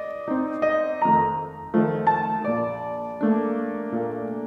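Ballet-class piano accompaniment: a gentle piece with new notes and chords struck about every three-quarters of a second.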